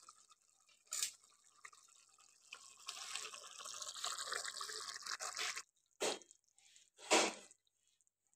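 Chicken and potato curry simmering in the pot, bubbling and sizzling, louder for a few seconds in the middle and then cutting off suddenly. Two short knocks follow near the end.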